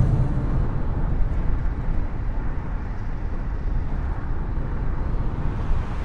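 Steady low rumble of a Volkswagen van driving, road and engine noise heard from inside the cab; the higher hiss of rushing whitewater dies away within the first second.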